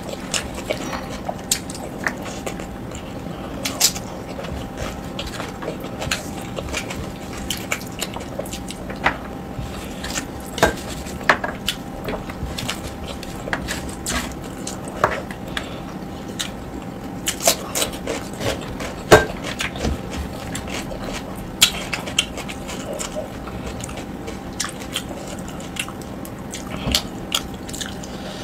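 Close-miked eating by hand: fingers squishing and mixing rice with curry on a steel plate, with irregular wet clicks and smacks, over a steady low hum.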